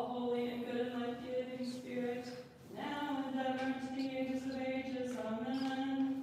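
Orthodox liturgical chant: a single voice sings long held notes in two phrases, with a short break about two and a half seconds in and small steps in pitch.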